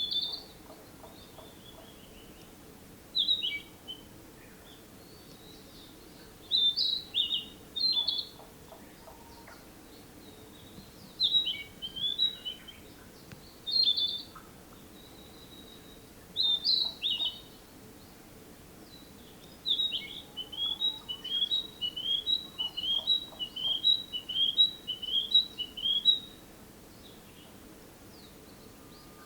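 Narcissus flycatcher singing: short whistled phrases of sliding notes spaced a few seconds apart, then near the end a longer phrase of about eight quick repeated notes.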